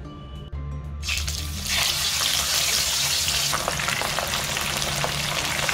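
Pieces of rohu fish slid into smoking-hot oil in a wok: the oil bursts into a sizzle about a second in and keeps sizzling steadily, with small pops throughout.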